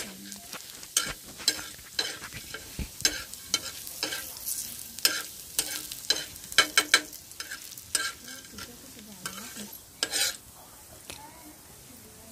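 A metal spatula scrapes and turns split dal across a flat griddle (tava) as the dal roasts. The sound is a run of irregular scrapes and light rattles over a faint sizzle.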